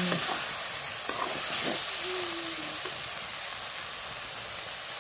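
Broiler chicken, potato and banana-stem pieces sizzling in hot oil in an uncovered iron wok: a steady frying hiss.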